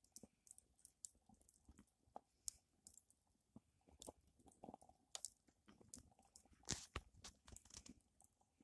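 Wood campfire crackling faintly, with irregular sharp snaps and pops scattered throughout and one louder pop about seven seconds in.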